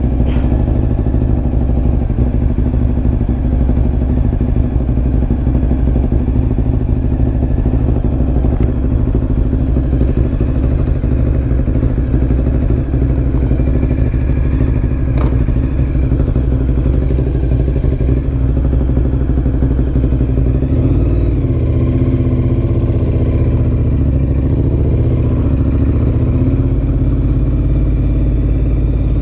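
Ducati Monster 1100 EVO's air-cooled L-twin running through a Termignoni exhaust, a steady engine note that shifts about two-thirds of the way through.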